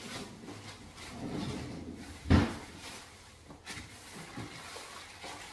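Household knocks and rustling, with one loud thump a little over two seconds in and a lighter click about a second later.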